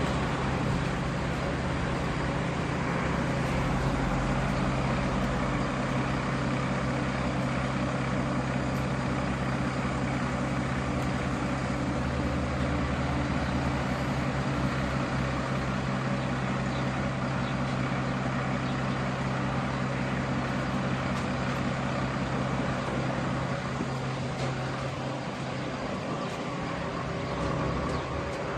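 Fire truck engine running at a steady speed, driving the hydraulics of its aerial ladder as the crew works it; an even, pitched drone, with a faint higher tone joining near the end.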